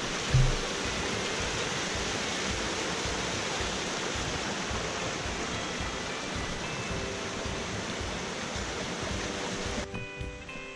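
Steady rush of a small mountain stream running over rocks in a landslide gully, with one low thump about half a second in. Near the end the water sound cuts off and background music takes over.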